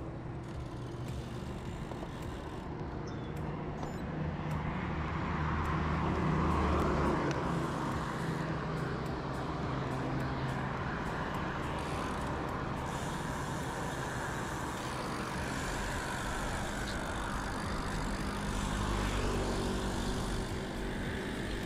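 A motor vehicle engine runs steadily under road noise, swelling to its loudest about six to seven seconds in.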